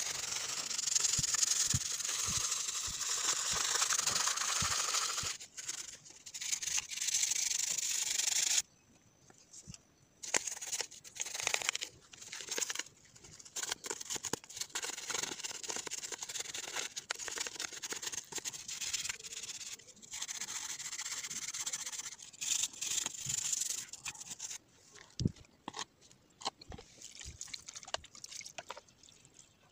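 Toothbrush bristles scrubbing a plastic multimeter case: steady brushing for the first eight or nine seconds, then shorter separate strokes that thin out near the end.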